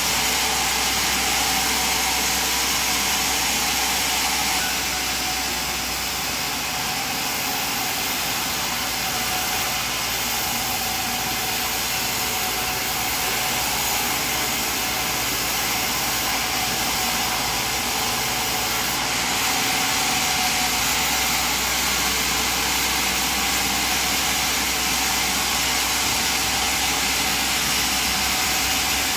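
Sawmill machinery running steadily: a continuous, even machine noise with no distinct starts or stops.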